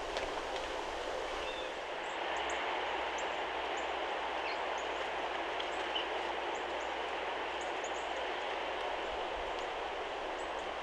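Steady rushing background noise, a little louder from about two seconds in, with a few faint, very short high chirps or ticks scattered through it.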